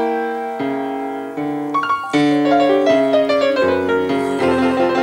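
Solo jazz piano on a grand piano: struck chords left to ring, and in the middle a line of notes stepping downward before a fresh chord.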